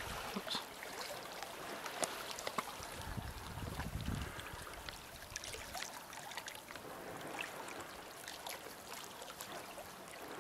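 Sea water lapping and trickling at the shoreline, with many small splashes and drips. A low rumble swells for a second or so about three seconds in.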